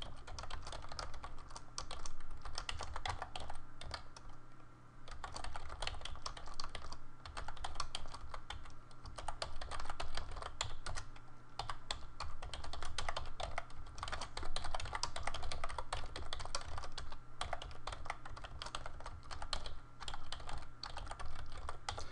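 Typing on a computer keyboard: a fast, uneven run of key clicks broken by short pauses, over a low steady hum.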